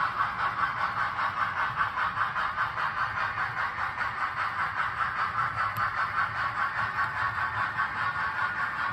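HO scale model freight train rolling past on its track: a steady rolling rush of wheels and running gear that pulses evenly, about three or four times a second.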